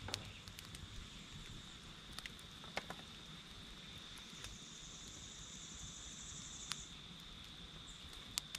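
Insects calling in the background: a steady high-pitched trill throughout, joined by a second, higher buzzing from about four and a half seconds in until near seven seconds. A few faint, scattered clicks.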